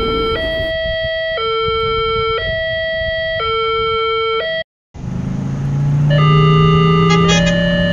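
Railroad crossing warning alarm: two electronic tones alternating about once a second. After a brief cut to silence about five seconds in, a different crossing alarm with its own two-tone pattern starts over a low steady hum.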